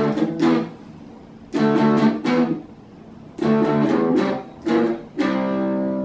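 Electric guitar played through a small practice amp: strummed chords in a repeating riff, one chord about every two seconds, the last held and left ringing.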